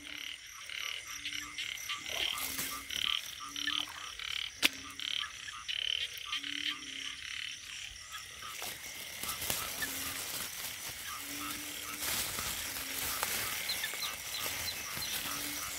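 Frogs calling in a wet-season chorus: short low croaks about once a second over a faster, higher-pitched pulsing chorus. About halfway through, a hiss grows louder.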